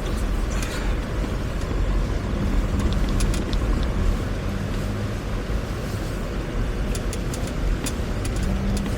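An off-road 4x4 driving slowly on a slippery snow- and ice-covered road: steady low engine and tyre rumble, with scattered light ticks.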